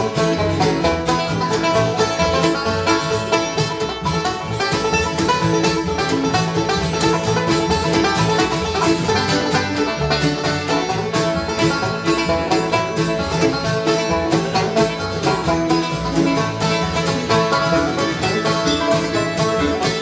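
Bluegrass band playing an instrumental live: fiddle, five-string banjo, mandolin, acoustic guitar and upright bass together, with a steady stream of quickly picked notes.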